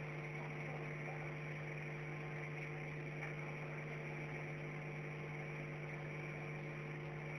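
Steady low electrical hum, mains-type, over a faint hiss, with no other events.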